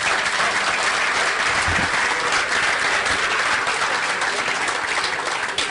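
Crowd applauding, many people clapping steadily.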